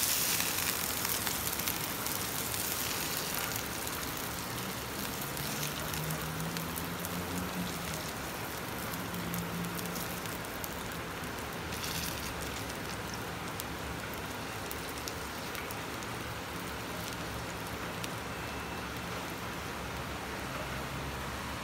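Oil left in a hot frying pan sizzling and crackling, easing a little over the first few seconds, then steady.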